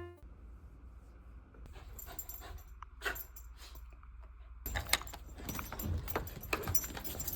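Light metallic jingling with scattered clicks and handling knocks, sparse at first and busier from about halfway in, over a low background rumble.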